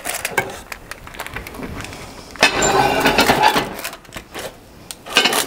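Stoneware baking dish and its glass lid being handled with oven mitts: a few clinks and knocks of ceramic and glass, and about two and a half seconds in a louder stretch of parchment paper rustling for about a second.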